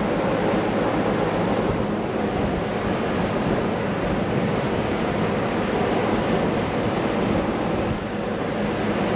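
Steady rushing noise of wind and ship's machinery on the aft deck of an anchored ship, with a constant low hum underneath. It stays unbroken throughout.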